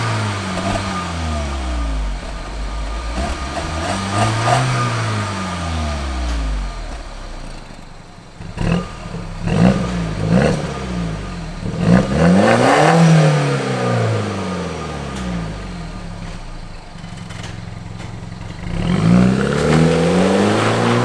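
BMW exhaust with a vacuum-operated valve, revved in a series of blips that rise and fall in pitch. With the valve open it gives sharp pops (crackles) on the overrun around the middle. Near the end the car accelerates away.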